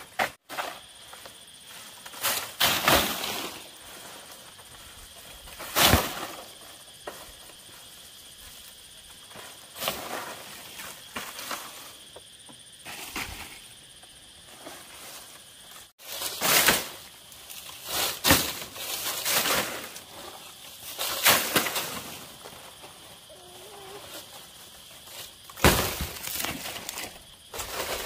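A series of sharp, irregular knocks or chops, each a second or more apart, some of them loud, with a short ring after each.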